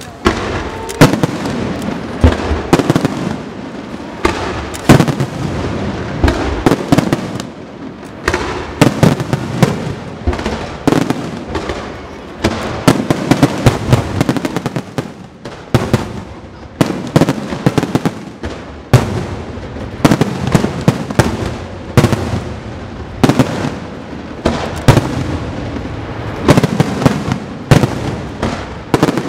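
Aerial fireworks display: shells bursting in dense clusters of sharp, loud bangs, often several a second, over a constant low noise between them.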